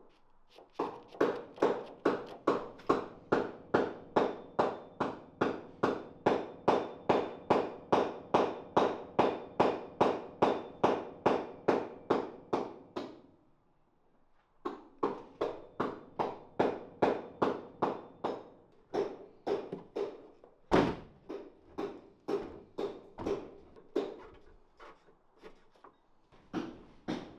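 Sharp, regular knocks, about three a second, with a faint ring to each. They stop for a moment midway, then resume less evenly, with one much louder bang about twenty seconds in.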